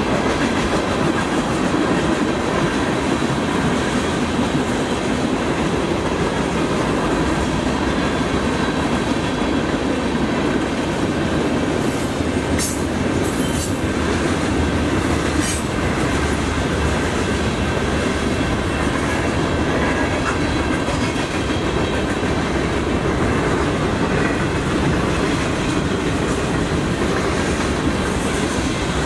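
Freight train cars rolling steadily past, wheels clattering on the rails, with a few brief high-pitched wheel squeals about midway.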